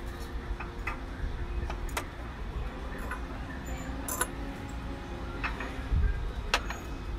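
Scattered light clicks and clinks, about a dozen at irregular intervals, as glass sugar dispensers with metal lids and a silver-plated bowl are picked up and set down on glass shelves, over a low rumble.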